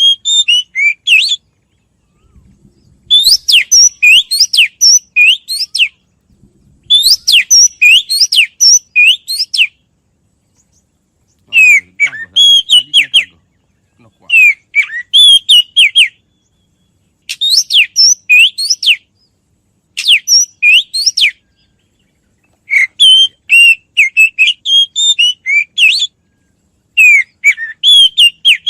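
A bird singing loud, repeated phrases of quick, sharp whistled notes, each phrase lasting one to three seconds, with short silent pauses between them.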